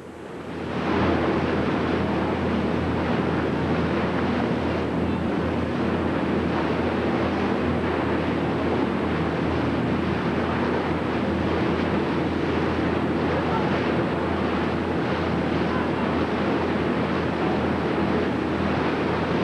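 Wind buffeting the microphone on a moving boat, over the steady low drone of the boat's engine and the rush of water along the hull. The noise fades up during the first second, then holds steady.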